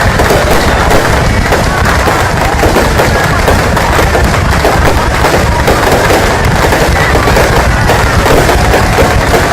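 A fireworks display in full barrage: a dense, unbroken stream of bangs and crackling, with crowd voices underneath.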